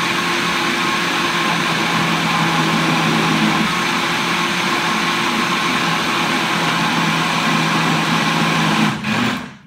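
Electric countertop blender running steadily at high speed, blending a thick mango purée with condensed milk. It is switched off near the end and the motor stops quickly.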